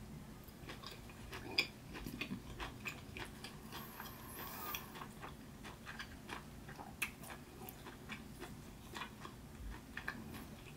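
Close-up chewing of stewed meat with the mouth closed: irregular soft wet mouth clicks and smacks, a few a second, with one sharper click about one and a half seconds in.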